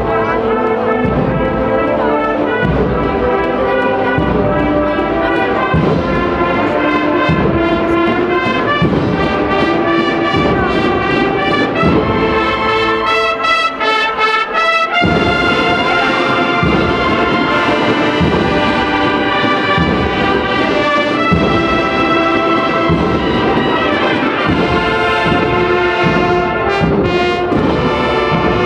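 A Holy Week agrupación musical playing a processional march: brass carries a sustained melody over steady drum beats. The drums drop out for a couple of seconds about halfway through, then come back in.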